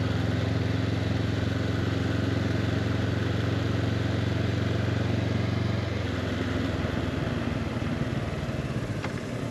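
Honda CB500X parallel-twin motorcycle engine running steadily while riding, over a steady rush of wind. About six seconds in the engine note changes and drops a little.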